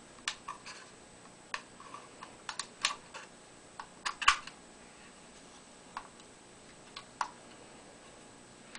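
Kodak Instamatic 104 camera being handled: a series of small, sharp plastic and metal clicks and snaps, the loudest cluster about four seconds in, as the camera's back is unlatched and swung open, then a few lighter clicks near the end.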